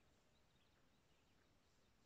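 Near silence, with a few faint, brief bird chirps.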